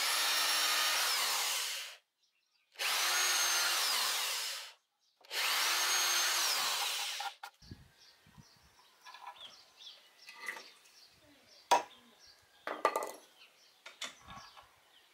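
Corded electric drill boring into a plywood board in three bursts of about two seconds, each ending in a falling whine as the motor spins down. After that, light knocks and clicks of wooden parts being handled, with one sharp tap.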